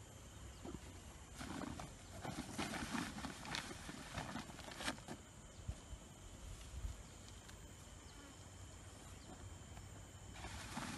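Rustling and scuffing of gloved hands and rubber boots working soil and granular fertilizer around the base of a young durian tree, with a couple of sharp clicks. It comes in bouts, from about a second in to about five seconds and again near the end, quieter between. A faint steady high tone runs underneath.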